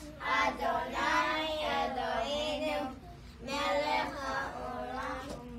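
A group of young children singing together, with a short pause about three seconds in.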